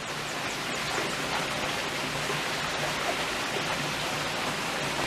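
Steady rushing of running water, like a stream or small waterfall, an even hiss that holds at one level throughout.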